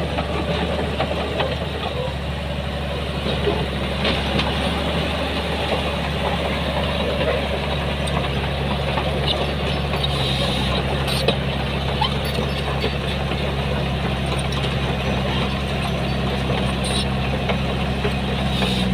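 Heavy diesel engine of earthmoving machinery running steadily, with a few short knocks; its low engine note grows a little stronger about eight seconds in.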